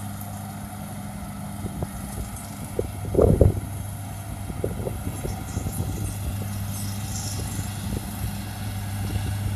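Steady distant drone of a rice combine harvester's engine as it cuts the standing rice, with one brief louder low rumble about three seconds in.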